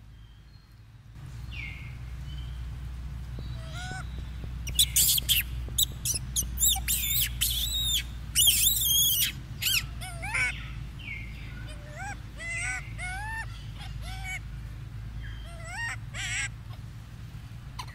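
Young macaques squealing: a run of loud, shrill calls in the middle, followed by a string of short up-and-down squeaks, over a steady low rumble.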